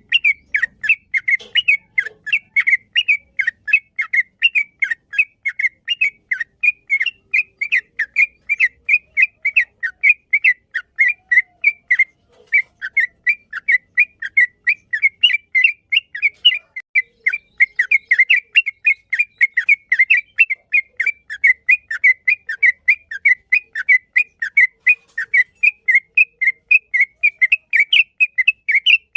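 Yellow-vented bulbul (trucukan) singing a long, fast run of short whistled notes, about three to four a second, broken only once briefly about twelve seconds in.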